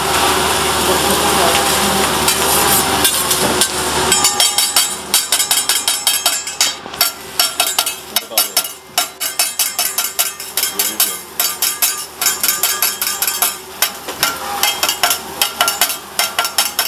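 Metal spatulas striking and scraping a steel teppanyaki griddle as the chef chops egg, a fast run of several clacks a second starting about four seconds in, over the sizzle of food frying on the hot plate. The first few seconds are mostly a steady sizzle.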